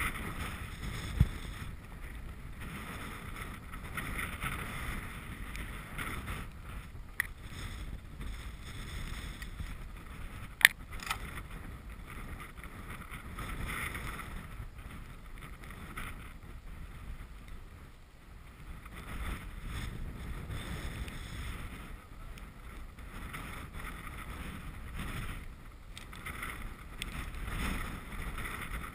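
Wind rushing over a GoPro camera's microphone on a very windy day, a steady noise that rises and falls in gusts. A few short, sharp knocks cut through it; the loudest comes about ten and a half seconds in.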